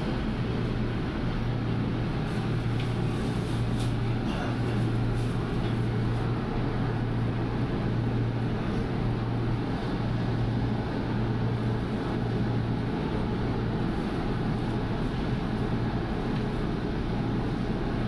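Manila LRT Line 2 train running between stations, heard from inside the carriage: a steady rumble of wheels and running gear with a low hum that swells a little now and then.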